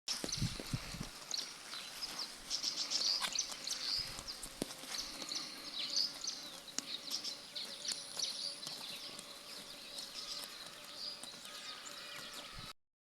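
Sheep grazing close up, with many short crisp tearing clicks of grass being bitten off and chewed, and birds chirping throughout.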